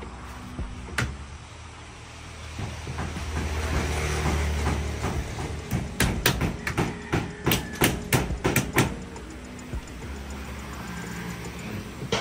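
Hammer driving nails into a wall board: one blow about a second in, then a quick run of about a dozen blows, roughly three a second, from about six to nine seconds in.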